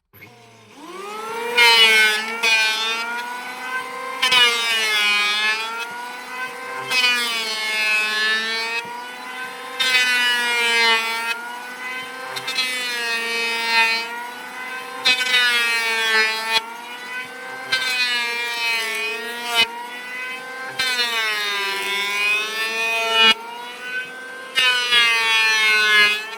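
Electric hand planer running continuously and making repeated passes over wood, roughly every one and a half to two seconds. Each pass adds a burst of cutting hiss, and the motor's pitch wavers slightly.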